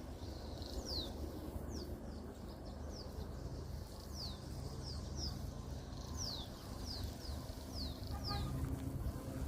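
Birds calling: a series of short, sharply falling high chirps, one every half second to second, over a steady low rumble.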